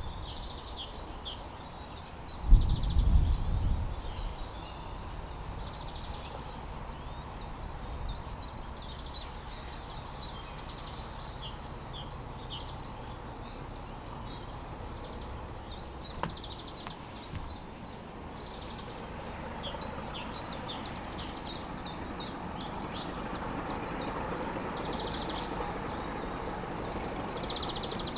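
Birds chirping and singing on and off, with a brief loud low thump about two and a half seconds in. In the second half a faint low rumble slowly grows louder.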